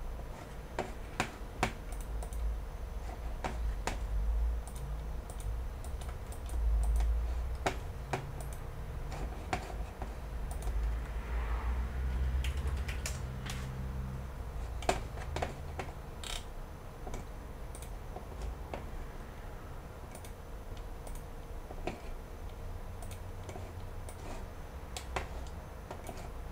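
Scattered, irregular clicks of a computer keyboard and mouse being operated, over a low background rumble.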